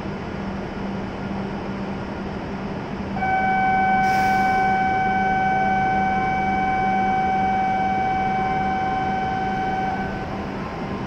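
A steady electronic tone sounds for about seven seconds at one unchanging pitch over the constant hum of a shinkansen standing at the platform, with a short hiss about a second into the tone. It fits the platform's departure signal sounding before the train leaves.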